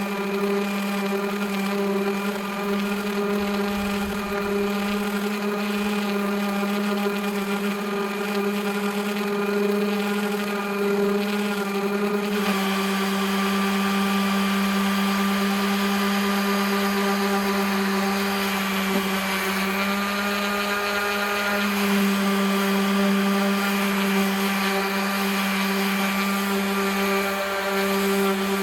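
Electric Bauer orbital sander running with 80-grit paper on rough chainsaw-cut wood, a steady motor hum. About twelve seconds in the sound shifts and grows rougher, with more hiss over the hum.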